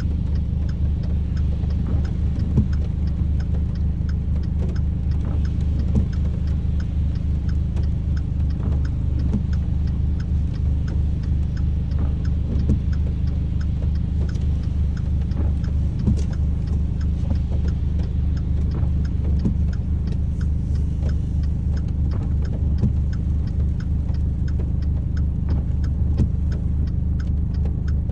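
Rain: scattered drops ticking irregularly over a steady, heavy low rumble.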